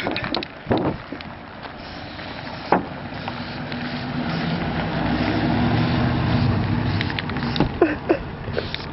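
A motor vehicle's engine drones, swelling from about three seconds in to its loudest past the middle and fading near the end, after a sharp knock.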